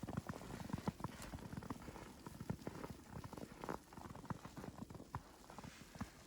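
Footsteps crunching through fresh powdery snow: many short, irregular crackles with each step.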